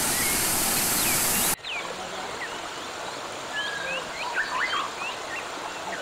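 A small stream rushing over rocks, cutting off abruptly about a second and a half in. Softer flowing water follows, with many birds chirping and whistling.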